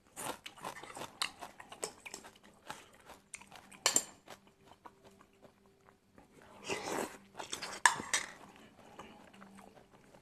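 Close-up chewing and mouth noises of someone eating stir-fried angled luffa with egg, with scattered short clicks; the sharpest clicks come about four and eight seconds in.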